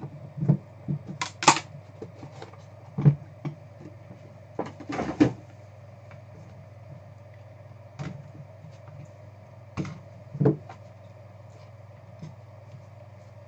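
A cardboard trading-card box being handled: a blade slits its seal, then the box is knocked and slid on the table mat and its lid lifted. The result is scattered knocks and short scrapes over a steady low hum.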